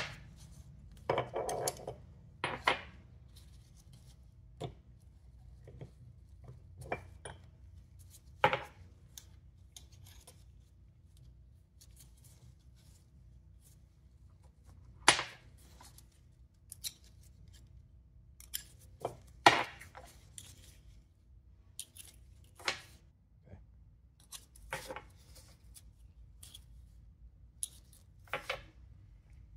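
Steel differential side gears and spider gears clinking and clanking as they are worked out of an open Dana axle carrier and set down on the workbench. Scattered sharp metal knocks at irregular intervals, the loudest about fifteen and twenty seconds in.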